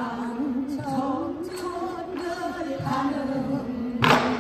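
Women's voices singing a Korean pansori-style folk song in long, held, wavering notes. A single buk drum stroke sounds near the end.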